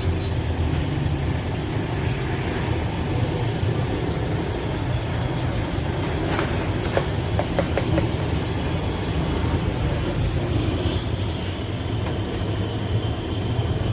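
Steady low rumble of a running motor vehicle, with a few light clicks about six to seven and a half seconds in.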